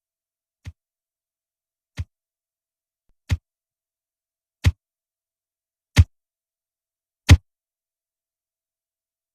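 A series of single sharp thuds, about one every second and a bit, each louder than the one before, then a pause near the end.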